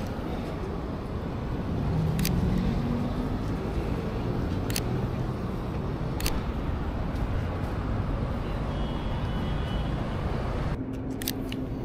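City street traffic noise, a steady rumble of passing vehicles, with three sharp single clicks of a Sony a6700 camera shutter a few seconds apart. About a second before the end the street noise cuts off suddenly, leaving a low steady hum and a couple more clicks.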